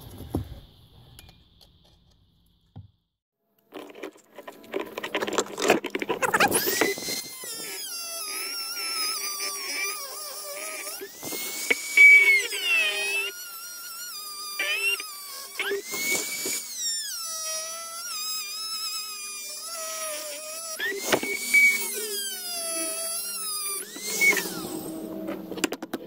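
Dremel rotary tool with a cut-off disc, starting about four seconds in, whining at high speed. Its pitch dips and climbs again several times as the disc bites into galvanised steel sheet, with a rough grinding rasp at each contact.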